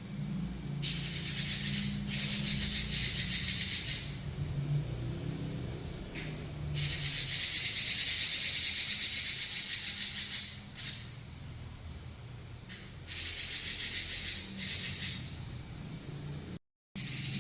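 Pekin robin (red-billed leiothrix) singing long rattling rolls: very fast high trills in four bursts of about one to three and a half seconds each, the longest starting about a third of the way in. A steady low hum runs underneath.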